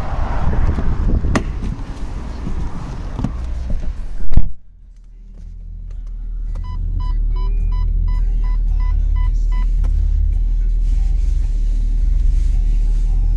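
Outdoor wind and street noise, then a loud thump about four seconds in. A steady low rumble of the Volkswagen Phaeton's idling engine is heard inside the cabin, and over it an electronic beep repeats about two and a half times a second for about three seconds. The beeping is the parking-aid warning as reverse is engaged and the reversing-camera display comes up.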